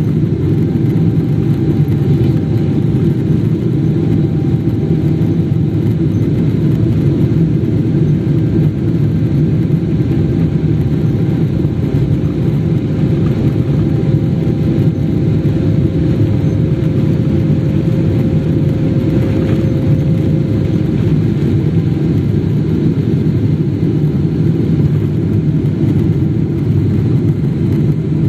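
Steady, loud cabin noise of a Boeing 777 with its engines running: a low, even rumble with a faint steady whine above it.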